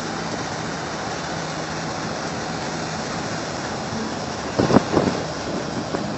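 Combine harvester running steadily, an even mechanical noise with a faint steady hum, broken by two short louder sounds about four and a half seconds in.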